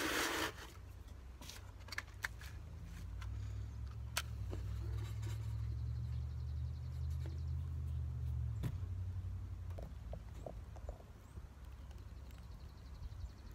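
Dry leaves crackling and clicking as they are handled and packed into a bee smoker, with a sharp click about four seconds in. A steady low rumble builds from about three seconds in and stops abruptly about two-thirds of the way through.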